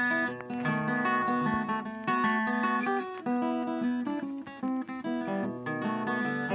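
Instrumental background music: a plucked guitar tune of quick, evenly paced notes.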